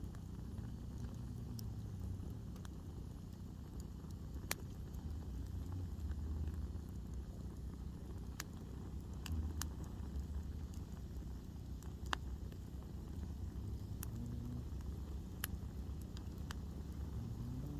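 Firewood burning, with scattered sharp crackles and pops a few seconds apart over a steady low rumble.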